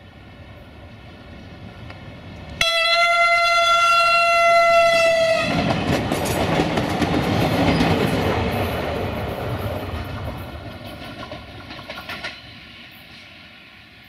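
Siemens Desiro VT642 diesel multiple unit approaching and sounding one steady horn blast of about three seconds. It then passes close by with loud wheel and engine noise and a few clicks from the wheels, which drops off sharply near the end.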